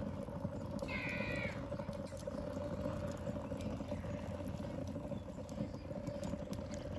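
Steady outdoor background of low rumble and a steady hum, with one short, high animal call about a second in.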